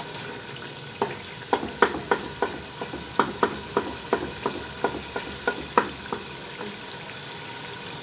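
Turnips and meat frying in an aluminium pressure-cooker pot, sizzling steadily, while a wooden spoon stirs them. From about one to six seconds in, the spoon knocks against the pot about three times a second.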